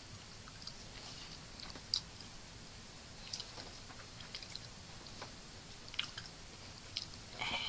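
Close-miked chewing of food, with irregular soft wet mouth clicks and smacks.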